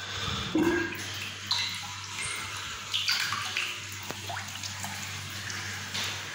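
Water running from a tap into a ceramic bathroom sink and splashing over a rubber balloon held in the stream, with a few sudden louder splashes or knocks, the loudest about half a second in.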